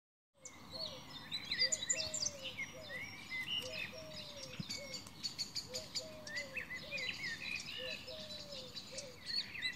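Birdsong: several small birds chirping and trilling, with a lower, falling call repeated about twice a second beneath them.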